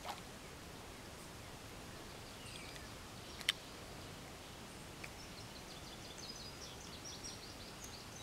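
Faint outdoor background noise with short, high bird chirps, a few early on and more through the second half. One sharp click sounds about three and a half seconds in.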